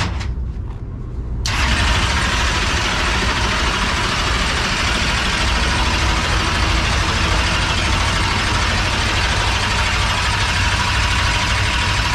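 Starter motor spinning a 445-cubic-inch SB2 small-block V8 in a dirt Super Late Model without it firing, used in place of a pre-lube pump to push oil through the fresh engine. The steady whirring cranking starts about a second and a half in and runs until near the end, over a steady low hum.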